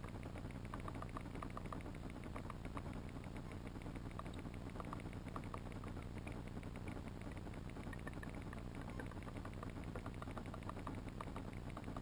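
Muffled underwater ambience picked up through a GoPro's waterproof housing: a steady low rumble with a dense crackle of faint clicks.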